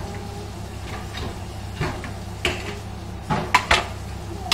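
Dishes clattering in a kitchen: a string of sharp clinks and knocks of plates and utensils, coming closer together and louder toward the end, over a steady low hum.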